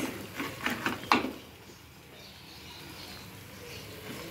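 A spatula scraping against a frying pan in several quick strokes while stirring fried onion, tomato and egg. After about a second and a half it goes quieter, with only a faint low hiss.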